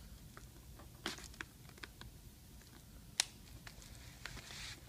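Faint plastic clicks and scraping from a laptop's plastic screen bezel being worked at by hand to unclip it, with one sharper click about three seconds in.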